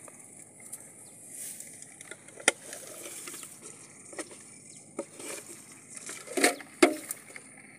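Grass rustling with scattered sharp clicks and knocks from handling gear in the grass, two louder knocks close together near the end, over a steady high hiss.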